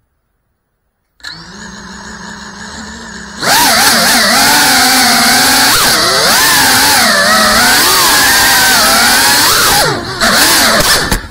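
GEPRC Cinelog 35 cinewhoop's electric motors and propellers. About a second in they spin up to a steady low hum at idle. A few seconds later they throttle up into a loud whine whose pitch rises and falls with the throttle during fast flight, and near the end it turns choppy.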